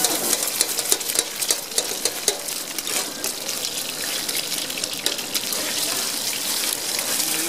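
Egg frying in oil on a large flat griddle (tawa), sizzling steadily with a constant fine crackle of spitting oil.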